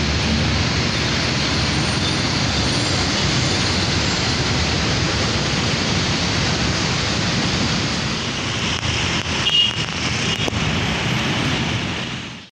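Steady road traffic noise, a continuous rushing of passing vehicles, with a brief louder moment and some high tones about nine to ten seconds in; it cuts off suddenly at the end.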